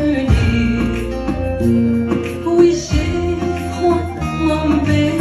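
A woman singing live into a microphone over band accompaniment with guitar and bass.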